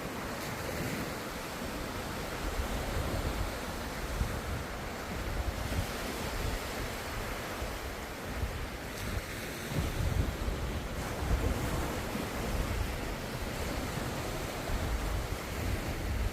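Ocean surf: a continuous rush of breaking waves with a low rumble that swells and eases, growing louder about ten seconds in.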